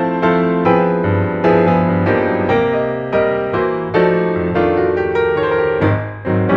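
Piano music: a melody of notes struck about every half second over held lower notes, with a brief drop in loudness near the end before the next note.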